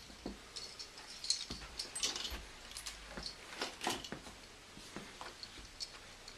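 Christmas ornaments and their hooks being handled: irregular light clinks, jingles and rustling, with a few louder knocks in the middle.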